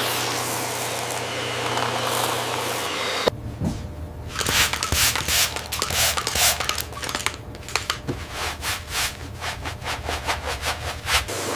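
A steady hiss for about three seconds, then an abrupt change to quick, uneven rubbing strokes on a surface, several a second, typical of hand sanding or scrubbing during rust removal and cleaning.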